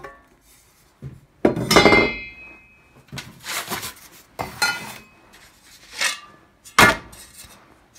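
Steel stovepipe sections and a sheet-metal plate being handled and set down: a loud metallic clank with a brief ring about one and a half seconds in, then several shorter knocks and rattles.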